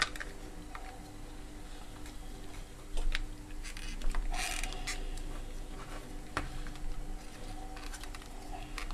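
A small transformer being pushed and turned into a plastic power-adapter housing by hand: scattered clicks and knocks of hard plastic, with a couple of short scrapes a few seconds in, over a faint steady hum.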